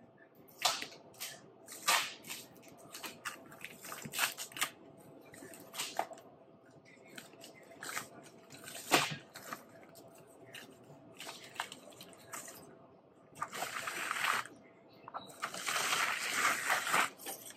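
White paper wrapping crinkling and rustling as it is pulled off a canvas painting: scattered sharp crackles, then two longer spells of continuous rustling near the end.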